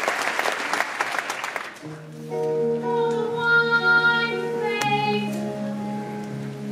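Audience applause dies away over the first two seconds. Then the band starts the curtain-call music with held, sustained chords that change about five seconds in.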